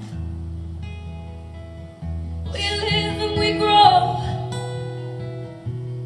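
Live music from a slow song: acoustic guitar playing held chords between sung lines, with a voice singing a short phrase about two and a half seconds in.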